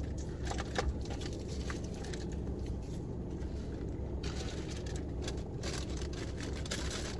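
Faint crunching, smacking and clicking of people eating tacos, over a steady low hum.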